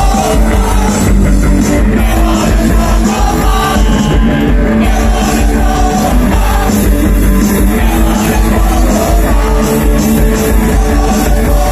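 Live punk rock band playing loud, with singing.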